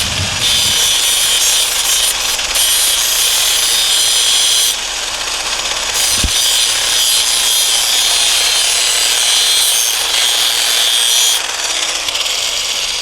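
Angle grinder grinding down rough welds on a steel repair patch: a steady, harsh hiss that gets lighter about five seconds in, comes back a second later, and eases again near the end.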